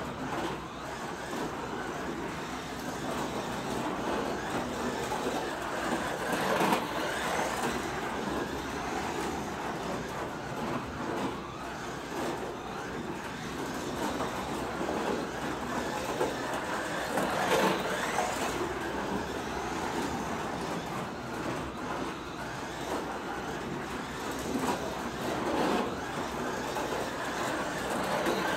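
A 1:24 scale Carrera Digital slot car running laps on its plastic track, its electric motor and tyres making a continuous whir. The sound swells three times, about every ten seconds, as the car comes round past the camera.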